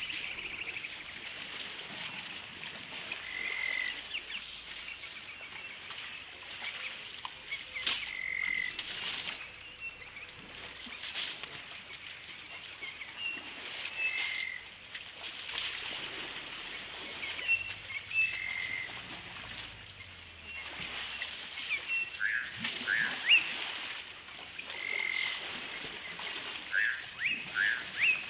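Small wild animals calling, frogs or birds: a short call repeats every few seconds over scattered chirping, with a run of louder, sharp falling calls near the end.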